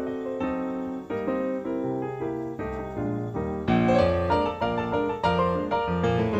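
Background piano music, notes played in quick succession, growing fuller and louder with deeper bass notes about two-thirds of the way in.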